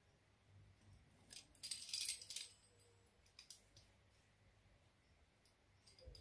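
Pizza-cutter wheel rolling through a sheet of dough on a plastic tablecloth: one short rasping, rattling stroke about a second and a half in, then a few faint clicks.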